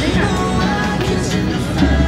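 Background music with held notes, and a heavy bass line that comes in near the end.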